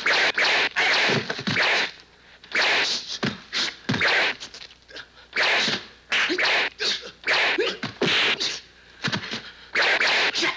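Dubbed fight sound effects from a kung fu film: a rapid, irregular string of sharp swishes and punch hits, about a dozen in all, each a fraction of a second long.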